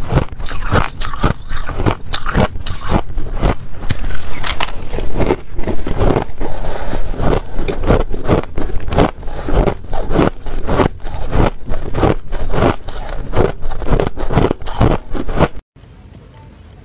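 Crushed ice crunched between the teeth: rapid, loud crunches about three or four a second. It stops abruptly near the end, leaving faint room tone.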